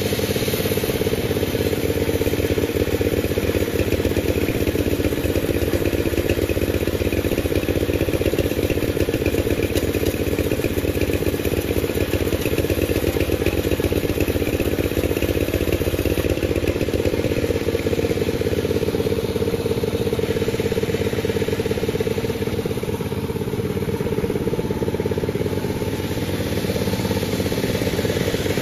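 Panda36 sawmill running steadily, its engine holding an even note, easing off a little for a few seconds about 23 seconds in.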